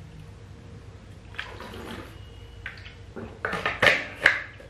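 A bottle being handled, with liquid sounds and a few short knocks and clinks. The loudest come in a quick cluster near the end.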